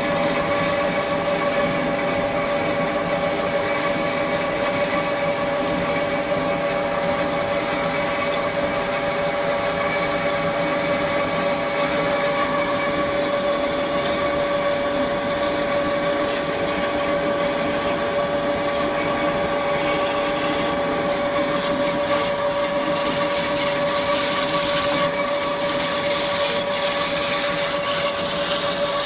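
KASTO HBA 420 AU automatic horizontal band saw running with a steady whine. About two-thirds of the way through, a higher, scraping hiss joins in.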